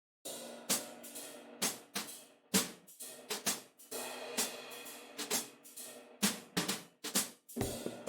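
Electronic drum beat from a Maschine MK3 groovebox: a pattern of hi-hat, cymbal and snare hits over sustained pitched notes, starting a moment in, with a deep bass line coming in near the end.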